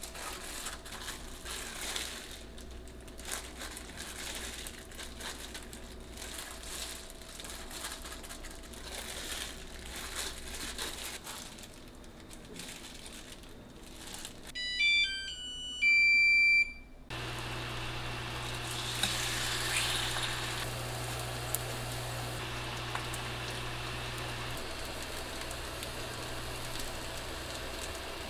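Plastic glove crinkling and rustling as raw beef slices are pressed into flour. About halfway through, a short melody of electronic beeps rising and falling in steps from a Coway Noble induction cooktop, then the cooktop's steady low hum as it heats, stepping down twice near the end.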